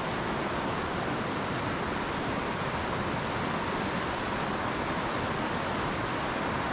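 Steady rush of a mountain trout creek running high and fast in flood after days of rain.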